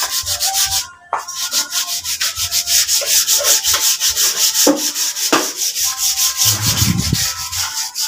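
Hand sanding of the wooden table top of a sewing machine cabinet: quick back-and-forth rubbing strokes, about five a second, with a short pause about a second in.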